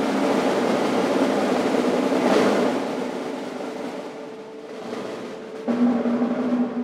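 Amplified contemporary chamber ensemble playing a dense, noisy sustained texture over held tones. It swells to a peak about two and a half seconds in, and a steady low held note enters near the end.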